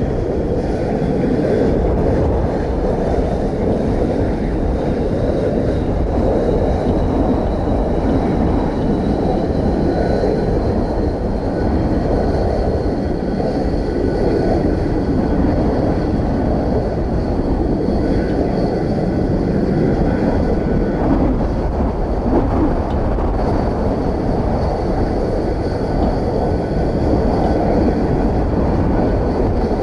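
The Boeing 727-200F's three Pratt & Whitney JT8D turbofans running steadily at low power, a deep rumble with a thin high whine that slowly creeps up in pitch. Heavy wind buffets the microphone throughout.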